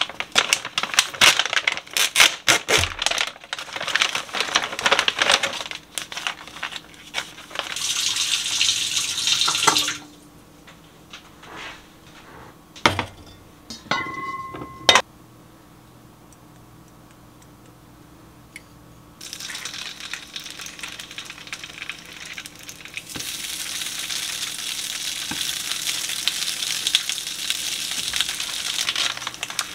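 Kitchen cooking sounds: quick clatter and clicks of dishes, utensils and packaging, then a quieter stretch broken by a few knocks and a short electronic appliance beep about halfway through, and a steady hiss through the last third.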